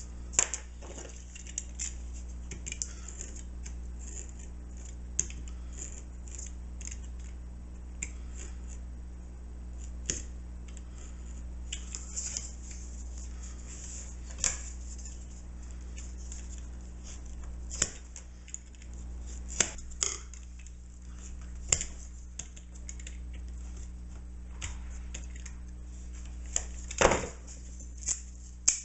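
A knife blade scoring and cutting into a wooden paint stick: short scraping strokes and sharp clicks every second or two, with the loudest crack near the end, over a steady low hum.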